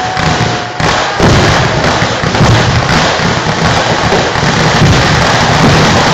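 A dense fireworks barrage going off without a break, a thick mass of crackles and bangs that gets louder about a second in.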